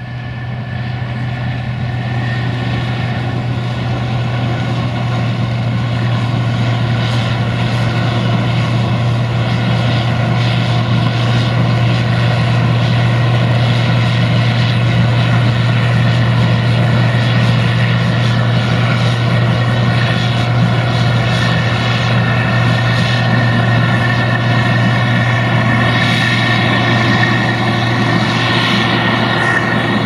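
Case IH 2166 Axial-Flow combine harvester running steadily while harvesting corn: a diesel engine drone with the whir and rattle of the threshing machinery over it. It fades in over the first couple of seconds, then holds steady.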